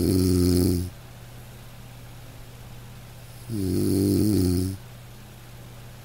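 A man snoring in deep sleep: two snores, one at the start and one about three and a half seconds in, each about a second long, with a faint steady low hum between them.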